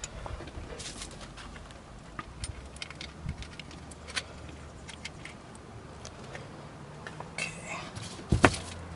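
Small clicks and clinks of screws and mounting parts being handled and fitted, with one sharper, louder knock near the end.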